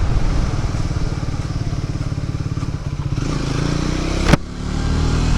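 Triumph Speed 400's single-cylinder engine running with a pulsing beat; the revs climb around three seconds in, then a sharp click and a brief drop in level, after which it runs steadily again.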